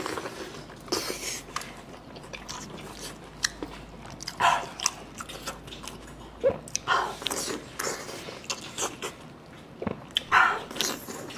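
Wet biting and chewing of a thick Chinese blood sausage in chili sauce, heard close up: irregular soft bites and mouth smacks, with a few louder ones near the middle and end.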